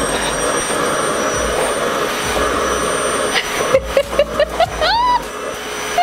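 RevAir reverse hair dryer's suction motor running steadily on setting 1: a vacuum-cleaner-like rush of air with a high, steady whine. A woman laughs over it in the last couple of seconds.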